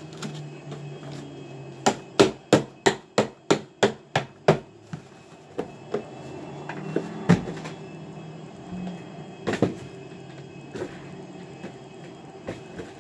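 Cardboard box being beaten apart: a quick run of about nine sharp knocks, roughly three a second, starting about two seconds in, then a few scattered knocks.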